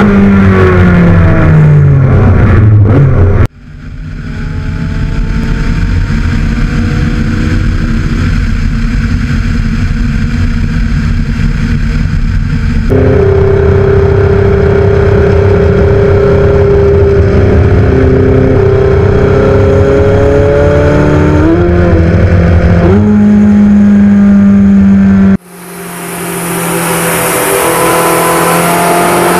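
Porsche 918 Spyder's naturally aspirated V8 running in three clips cut together. It first drops in pitch as it slows, then holds a steady, slowly rising note. After another abrupt cut it revs up gradually on a dyno under a loud steady hiss.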